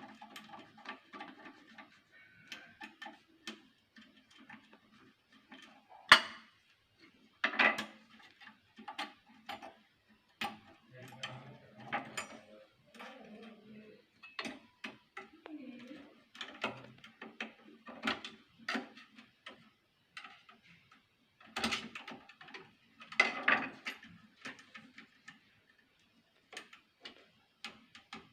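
Irregular metallic clicks, taps and clinks from hand work on a sewing machine's needle plate and shuttle, with a few sharper knocks. It is an adjustment of the shuttle to cure skipped stitches.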